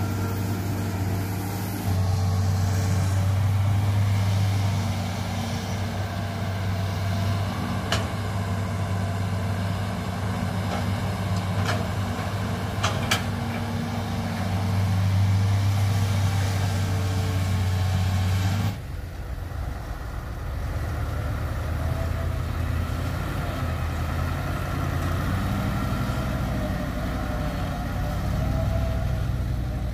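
Diesel engine of a Hitachi hydraulic excavator running steadily as it digs and swings loads of soil, its note swelling and easing with the work, with a few sharp clicks in the first half. About two-thirds in, the sound changes abruptly to another heavy diesel engine running beside a dump truck.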